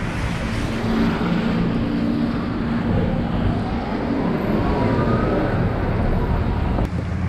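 City street traffic: cars, taxis and vans running and passing on wet roads, with a steady engine hum underneath.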